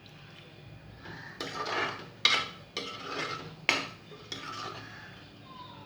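Metal spoon stirring in a pressure cooker pot, scraping and clinking against its sides, with a few sharp knocks.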